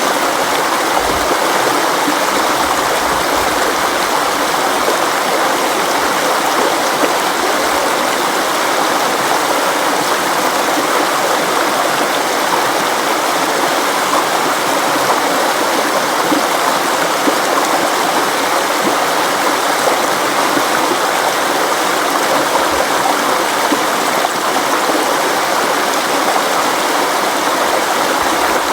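River water flowing steadily over rocks, a continuous even rushing and babbling.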